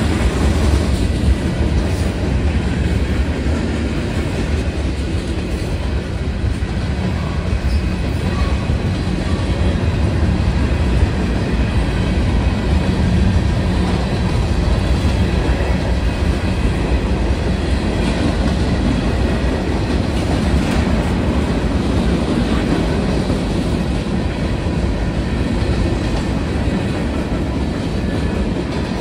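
A mixed freight train's cars rolling past close by: a steady rumble of steel wheels on the rails.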